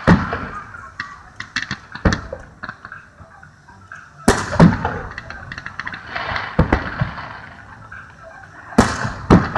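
Aerial fireworks shells bursting, sharp booms every second or two with crackling in between; the loudest bursts come at the start, about four and a half seconds in and near the end.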